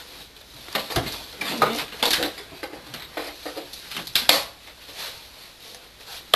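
Irregular knocks, clinks and rustling of someone handling things and moving about right next to the microphone.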